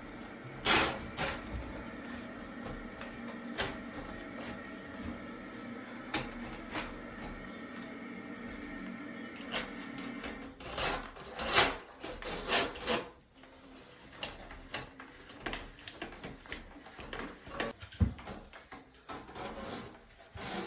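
Toilet auger being worked in a clogged toilet bowl: irregular knocks, clicks and rattles of the snake's cable and handle against the porcelain, with a denser run of louder knocks a little past halfway. A steady low hum underneath stops about two-thirds of the way through.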